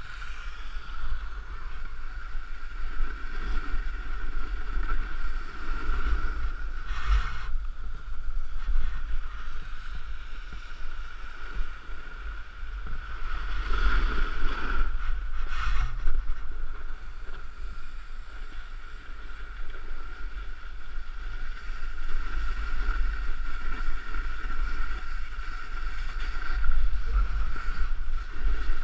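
Wind rushing over the microphone of a camera carried downhill at speed, mixed with the hiss and scrape of a board sliding over packed snow. It swells louder a couple of times.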